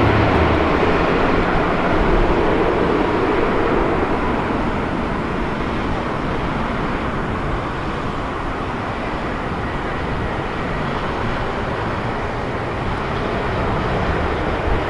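Jet engines of a Boeing 787-10 on landing: a steady rushing jet noise, loudest at first as the airliner comes over and easing off gradually through touchdown and rollout.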